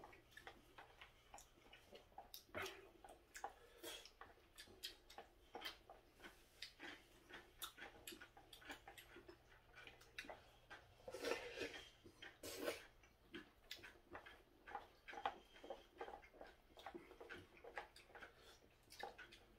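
Faint, irregular clicks and scrapes of wooden chopsticks against a disposable plastic takeout bowl while jajangmyeon is picked up, mixed with chewing and lip-smacking. A louder run of clicks and mouth sounds comes a little past halfway.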